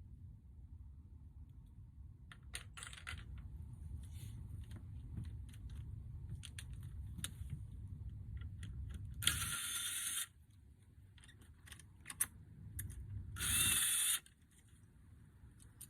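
Rummaging through a container of hardware and scraps for a shim: small metal parts clink and rattle with scattered clicks, and two louder scrapes, each under a second long, come about nine and thirteen seconds in.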